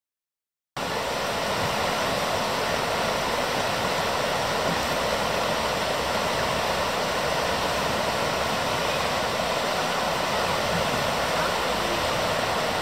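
Shallow river rushing over a gravel riffle: a steady hiss of moving water that starts abruptly under a second in.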